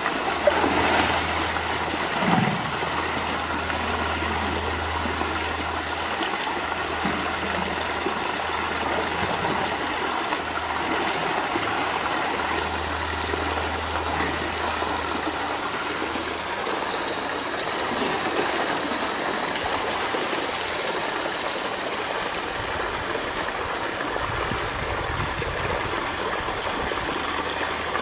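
Steady rush of flowing water in a polar bear's pool, with a couple of splashes from the bear swimming in the first few seconds.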